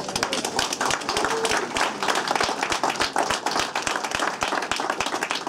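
A small crowd clapping in applause: many dense, overlapping hand claps at the end of a speech, thinning out just after.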